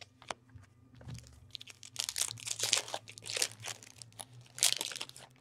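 A foil hockey-card pack wrapper being torn open and crinkled by hand, a run of crackly rustling that is loudest near the end.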